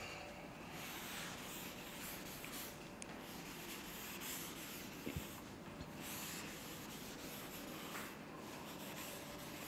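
Chalkboard eraser rubbing across a blackboard in repeated wiping strokes, a quiet scrubbing hiss, with a small knock about five seconds in.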